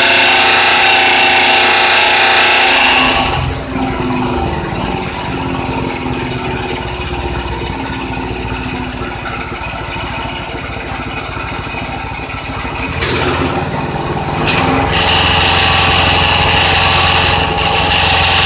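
A machine running, loud and hissy at first, quieter and duller from about three and a half seconds in, then loud again from about fifteen seconds in. The owner hears it as an abnormal noise of unknown cause.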